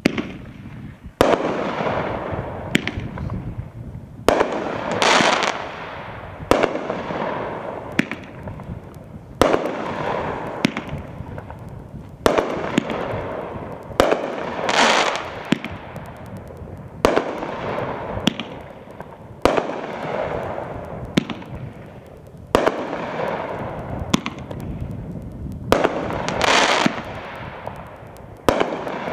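Rip Snorter consumer fireworks cake firing shot after shot: a sharp bang every one to two seconds, each followed by a hissing, fading tail as the stars burst and burn out.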